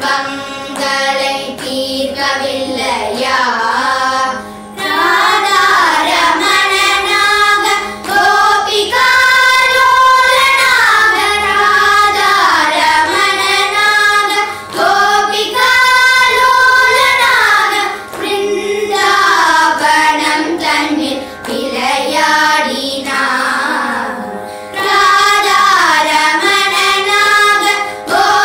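A group of young girls singing a Carnatic song together, the melody full of sliding ornaments, with short breaks between phrases over a steady drone note.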